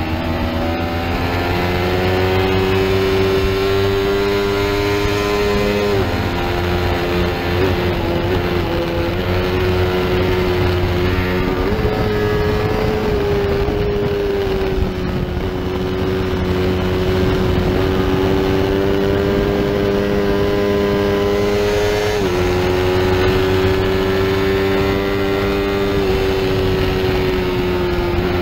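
Small-displacement sport bike's engine heard from onboard at racing speed, held high in the revs. Its pitch climbs at first, then steps a few times as gears change, about 6, 12 and 22 seconds in. A steady rush of noise runs under it.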